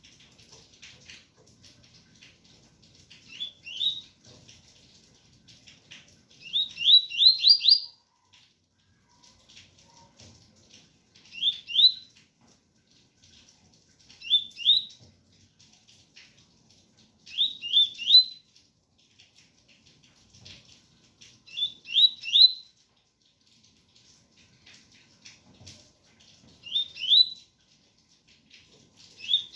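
Double-collared seedeater (coleiro) singing the 'tui-tui' song: short phrases of two to five quick rising notes, repeated every three to four seconds. A faint patter of rain runs under it.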